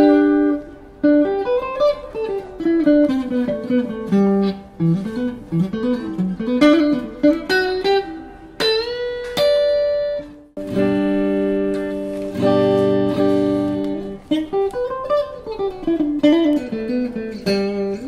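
PRS DGT electric guitar played through a Mesa Rectoverb 25 combo amp: fast single-note runs sweeping down and back up, a note bent upward about nine seconds in, then a chord held for a few seconds before the runs start again.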